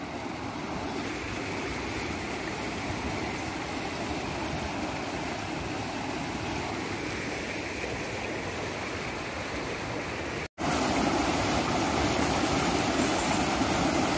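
Muddy stream water rushing out through the culvert under a small concrete footbridge, a steady rush. About ten seconds in it drops out for a moment and comes back louder as the stream tumbling over rocks in small rapids.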